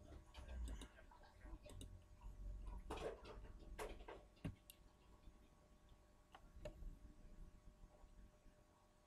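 Near silence with faint, irregular clicks of a computer mouse, most of them in the first half.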